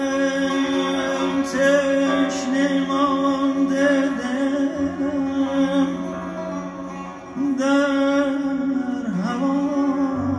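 Persian classical music performed live: a man's singing voice over a held drone and ornamented lines from an ensemble of bowed and plucked strings and piano. The sound drops briefly about seven seconds in, then resumes.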